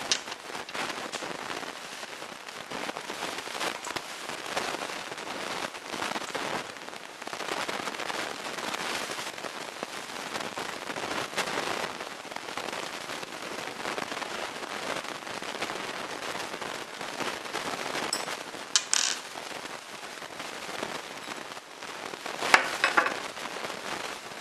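Handling noise of disassembled Henry Big Boy lever-action rifle parts: hands and metal rubbing and scraping on the brass receiver, a steady crackly rustle. A few sharp metallic clicks stand out, the loudest near the end.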